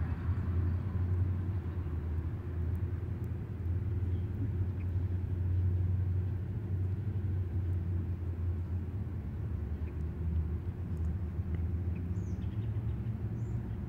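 Steady low background rumble, like distant traffic or machinery, with a couple of faint high chirps near the end.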